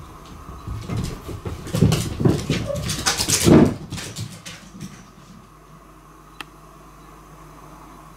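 A house cat galloping across a wooden floor in play: a rapid run of thuds and claw scrabbles lasting a few seconds, then one sharp click a little later.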